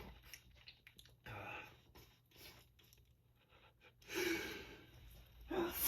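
A person sneezing hard, with small breaths and mouth clicks, then a loud sneeze about four seconds in and another just before the end.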